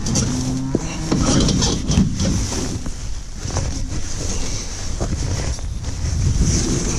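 Wind buffeting the microphone, a heavy steady rumble, over the low hum of a tractor engine running.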